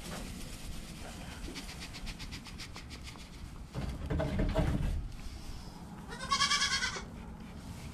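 A goat bleats once about six seconds in, a short, high, wavering bleat that is the loudest sound here. Before it, dried seaweed granules patter into a metal feeder.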